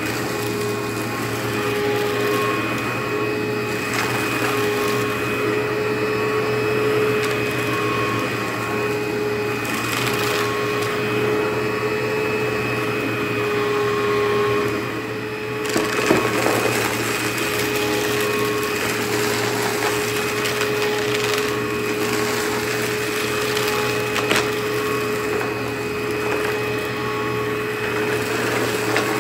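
Upright vacuum cleaner running steadily with a constant motor whine as it is pushed over a debris-strewn rug. Scattered crackles come as debris is picked up, with a louder burst of crackling about halfway through.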